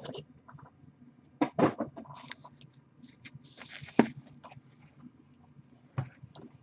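Handling noises of graded card slabs and their box: a few sharp plastic clacks, loudest about one and a half seconds in, at four seconds and at six seconds, with brief rustling in between.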